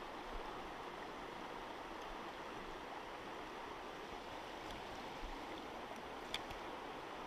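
Shallow river water running over rocks, a steady rushing, with a single small click about six seconds in.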